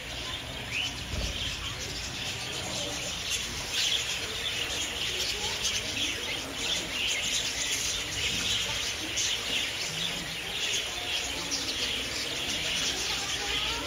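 Many birds chirping and chattering at once, a dense, continuous mix of short high calls.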